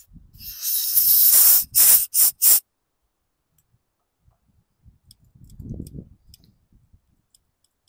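Compressed-air blow gun blasting air through a small-engine carburetor's passages and float needle seat to clear them: one longer blast, then three short quick bursts, all in the first two and a half seconds.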